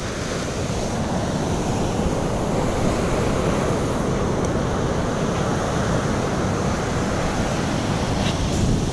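Ocean surf on a beach, a steady wash of noise, with wind on the microphone.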